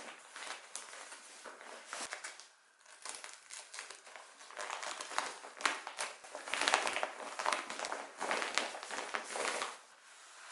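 Crinkling and rustling in irregular bursts, with scattered light clicks, as of something being handled.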